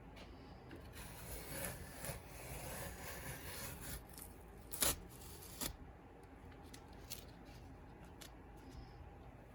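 Rubbing and scraping handling noises lasting a few seconds, with two sharp clicks less than a second apart near the middle.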